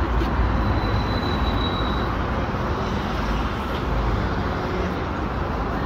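Steady city street noise: a low traffic rumble with a dense hiss. A faint thin whine sounds for about a second shortly after the start.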